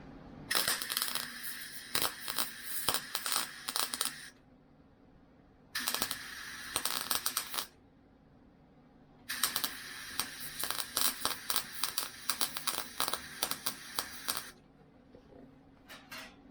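Wire-feed (MIG) welder arc crackling in three runs, the longest near the end, with quieter pauses between, as holes and seams in the Beetle's steel body panels are welded.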